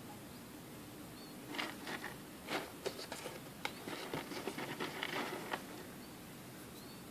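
Dry wood pellet bedding rustling and clicking as a hand rummages through it, a run of short scrapes and clicks from about a second and a half in until a little past five seconds.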